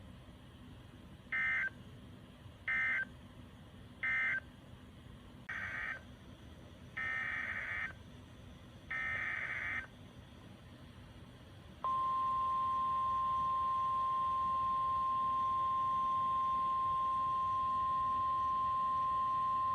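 Emergency Alert System SAME data bursts: three short buzzy end-of-message bursts, then three more bursts (the last two longer) heading the next severe thunderstorm warning, then NOAA Weather Radio's single-pitch 1050 Hz warning alarm tone, held steady for about nine seconds from about halfway in.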